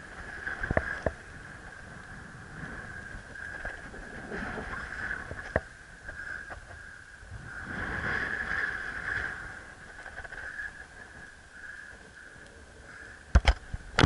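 Wind gusting over the microphone in uneven swells, with a steady high whistle that grows louder about eight seconds in. There are a few light clicks, then two sharp knocks near the end.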